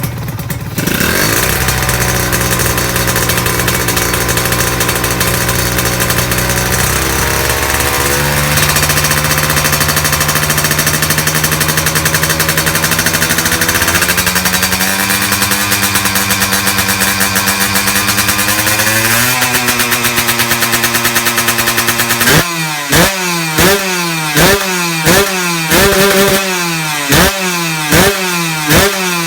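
Honda LS125 single-cylinder four-stroke motorcycle engine, freshly rebuilt with a new connecting rod and a 0.50 mm oversize piston, held at a raised, steady rpm that steps up in pitch a couple of times. Near the end it is blipped sharply over and over in quick succession, each rev rising and dropping back.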